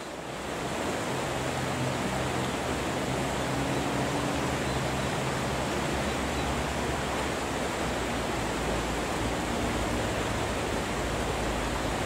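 Mountain stream rushing over rocks and shallow riffles, a steady even rush of water.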